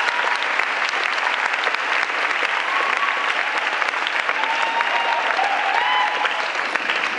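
An audience applauding steadily, with a few voices calling out over the clapping.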